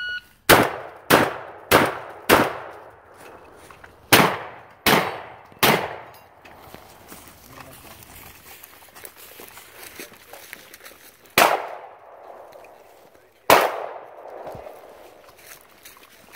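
A shot timer's start beep, then seven shotgun shots in two quick strings of four and three, fired in close to even rhythm. After a pause of several seconds, two more single shots ring out a couple of seconds apart, with the rustle of footsteps through dry leaves in between.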